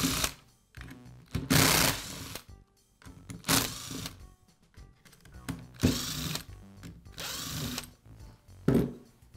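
Power screwdriver spinning in several short bursts, backing screws out of a DeWalt polisher's plastic rear-handle housing. Each run lasts under a second, with a short rising whine as the motor spins up. Faint background music runs underneath.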